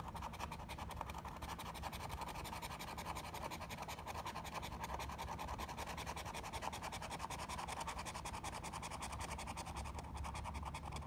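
A large coin scratching the coating off a scratch-off lottery ticket in rapid, steady back-and-forth strokes.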